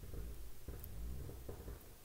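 Quiet room tone with a low rumble and a few faint soft rustles and taps, like a hand shifting its grip on a stone held close to the microphone.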